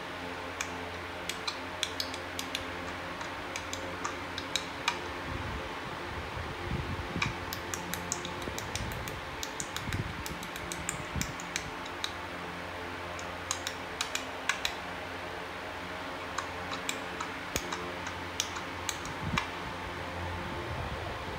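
Small plastic LEGO pieces clicking and tapping as they are handled and snapped together, heard through a laptop's speakers, with irregular light clicks over a steady low hum.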